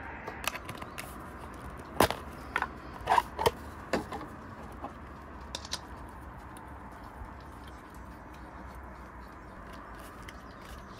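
Small gas lantern being handled on a table: several sharp clicks and clinks of its metal fittings and glass globe in the first four seconds, then softer ticks and rubbing as the globe comes off and the leather canister cover is worked.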